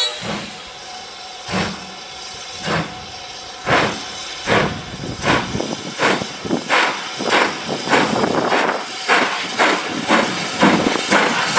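BR Standard Class 5MT 4-6-0 steam locomotive 73082 'Camelot' working hard, its two-cylinder chimney exhaust beats quickening from about one a second to two or three a second as it picks up speed, with steam hissing between the beats.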